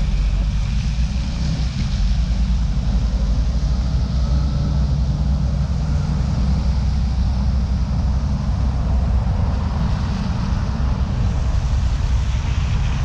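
Steady city traffic passing on a wet road, under a heavy, constant low rumble of wind buffeting the microphone.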